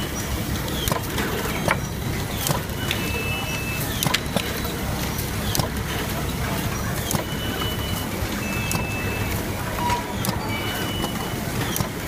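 Automatic screw-fastening machine at work, over steady workshop noise. Its fixtures and feeder make frequent sharp clicks and knocks, and there are four short high whines as the electric screwdriver spins screws into the remote-control boards.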